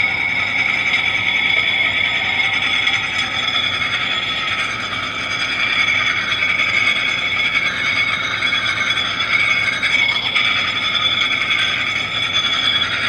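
Spinning steel hurricane balls giving a loud, steady high-pitched whine, two tones held together, the pitch wavering slightly as they spin.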